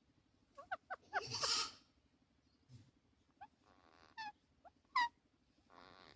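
Parakeets calling: a string of short, sharply falling chirps, with one louder harsh screech about a second in.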